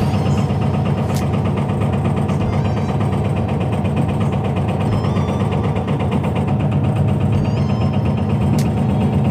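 Backhoe's diesel engine running steadily under a hydraulic rock breaker that hammers in a fast, even rattle of blows as it works to split rock.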